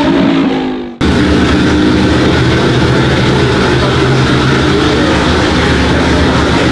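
A car engine note falls and fades out in the first second. Then the Ferrari 250 GT SWB Berlinetta Competizione's 3-litre 60° V12 idles steadily and loudly.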